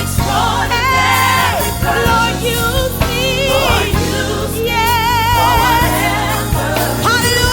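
Gospel worship song: a voice sings long held notes with wide vibrato over a steady instrumental backing.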